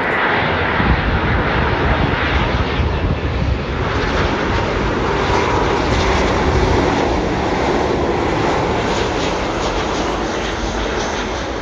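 Jet engines of a British Airways Boeing 777 airliner on final approach, coming in low and touching down on the runway, heard as a loud, steady rush of jet noise.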